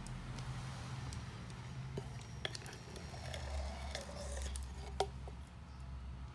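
Faint scraping and a few light taps as a small tool clears leftover screen adhesive from a phone's frame, over a low steady hum.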